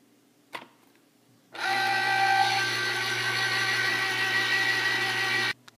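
Electric citrus juicer motor running steadily for about four seconds while a grapefruit half is pressed onto its spinning reamer, then stopping abruptly. A short knock comes about half a second in, before the motor starts.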